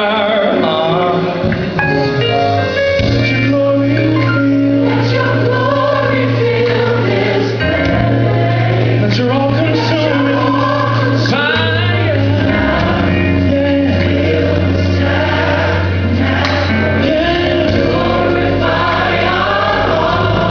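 Gospel choir singing with band accompaniment, over long held bass notes that change every few seconds.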